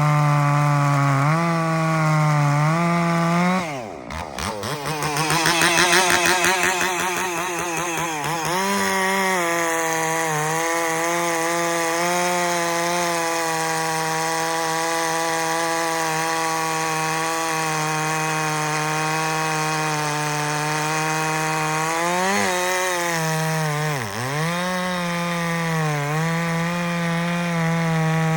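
Stihl 046 chainsaw with a dual port muffler running at full throttle, cutting through white oak with a 28-inch full-skip bar and chain; its engine note holds steady under load. The pitch drops sharply and wavers back up about four seconds in, and dips briefly twice near the end before picking back up.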